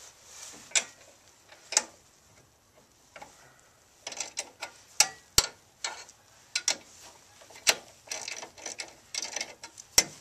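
Sharp metallic clicks and taps from loosening and sliding the counterweight on a Nelson waterer's fill valve. A few scattered clicks at first, then many in quick succession from about four seconds in.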